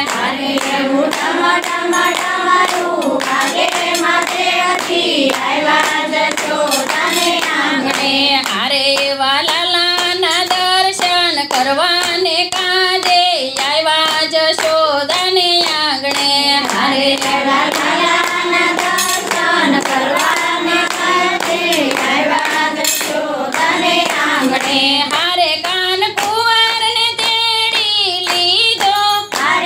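Voices singing a Gujarati devotional kirtan together, with rhythmic hand-clapping keeping time.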